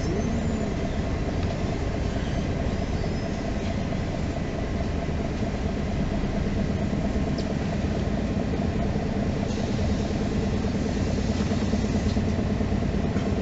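MAN NG 313 articulated city bus, its diesel engine running steadily, heard from inside the passenger cabin, with a few faint clicks and rattles.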